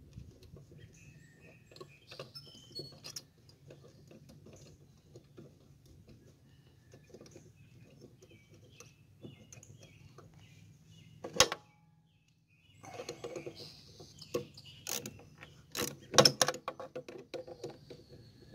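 Handling noise of a rubber mower-deck V-belt and the metal deck pulley as the belt is worked by hand around the pulley: scattered light clicks and knocks, a sharp knock about eleven seconds in, and a run of louder knocks near the end.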